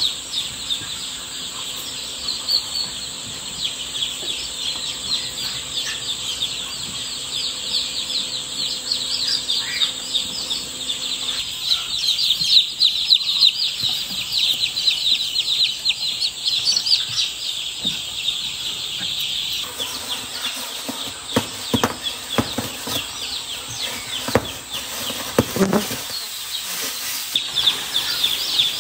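A brood of newly hatched chicks peeping continuously, a dense chorus of short high cheeps. In the last third, knocks and rustling join the peeping.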